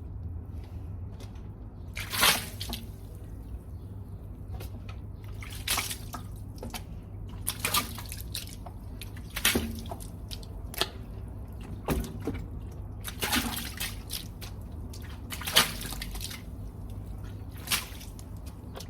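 About eight short hissing squirts of water at irregular intervals, over a steady low hum.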